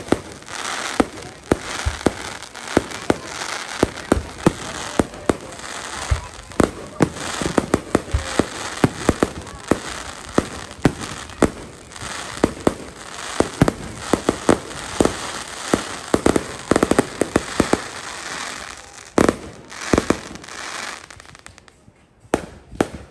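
Fireworks display, with aerial shells bursting in rapid succession: dozens of sharp bangs over a continuous din that drops away near the end.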